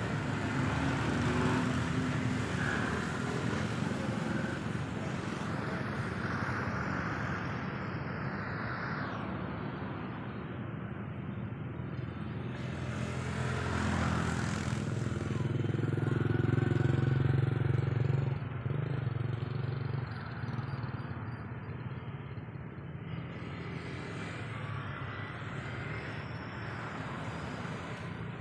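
Road traffic, cars and motorbikes going by: a steady low rumble that swells several times as vehicles pass, loudest a little past halfway.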